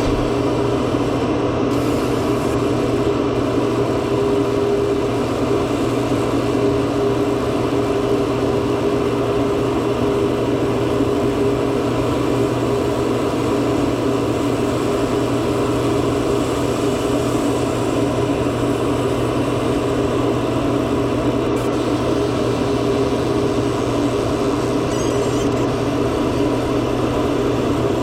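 Laser machine for removing iPhone back glass running, a steady, even mechanical hum with no change.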